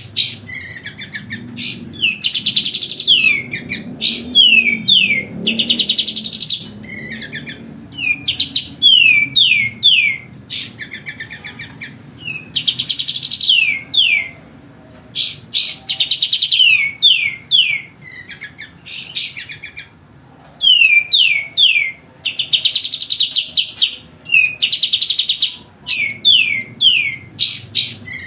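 A kapas tembak bulbul singing continuously and noisily: phrases of quick, falling whistled notes run together with rapid rattling trills, broken by short pauses between phrases.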